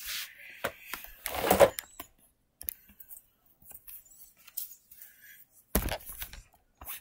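Handling noise close to the microphone: scattered clicks, knocks and rustles as things are moved about and the camera is bumped, with a louder burst about one and a half seconds in and a heavy thump about six seconds in.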